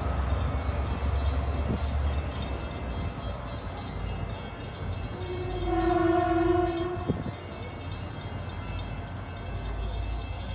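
Shore Line East train pulling out with a low rumble, then one long, single-pitched horn blast lasting under two seconds about five seconds in, followed by a brief sharp click.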